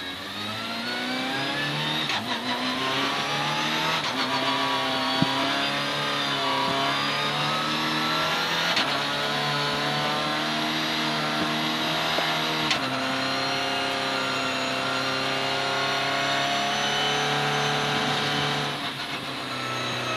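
Citroën C2 R2 Max rally car's four-cylinder engine heard from inside the cabin under hard acceleration, revs climbing with quick upshifts in the first few seconds and then held high. There is a sharp lift off the throttle about two-thirds of the way through and another easing off near the end.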